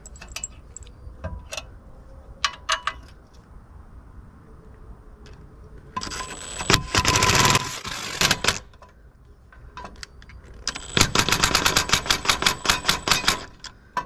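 Cordless brushless impact driver running in two bursts, about six seconds in and again near the end, hammering a masonry screw through a steel outlet box into brick. The second burst is a fast, even rattle of impacts. Small clicks of the screw and box being handled come first.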